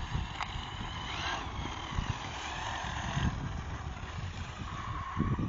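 Losi 8ight 1/8-scale RC buggy's Neu 1512 brushless motor on 5S whining as the car drives, its pitch rising and falling with the throttle, over low rumbling and thumps.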